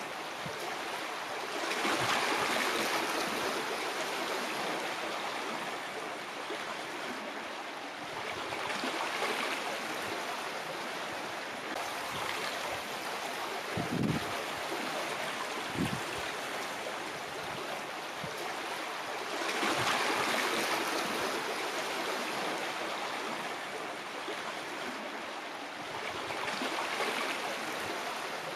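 Sea water washing and lapping among rocks in a shallow rocky cove, swelling in gentle surges every several seconds. Two short low slaps of water about halfway through.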